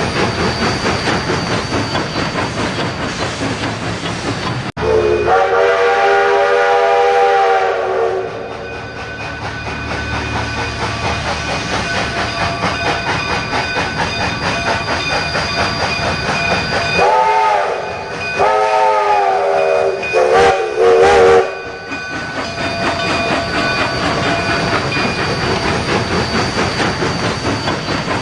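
Model trains running on three-rail O-gauge track, the wheels clicking steadily over the rail joints. A train's electronic whistle sounds one long chord-like blast about five seconds in, and a few shorter blasts near the middle.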